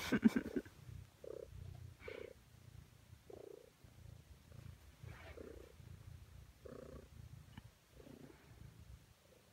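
Ragdoll cat purring right at the microphone: a low, steady rumble that swells softly about once a second with its breathing. A brief louder sound comes at the very start.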